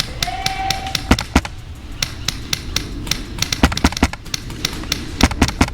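Airsoft guns firing during a skirmish: a rapid, irregular patter of sharp snapping clicks, denser and louder near the end. A short held tone sounds briefly near the start.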